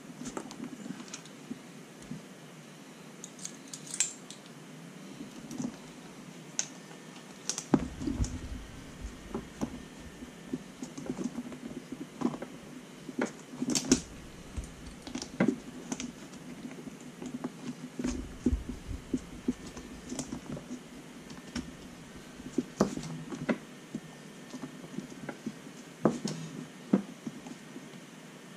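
Irregular small clicks and light knocks of hard plastic and metal parts being handled and fitted while an RC rock crawler wheel is assembled by hand. There are duller thuds about eight seconds in and again about eighteen seconds in.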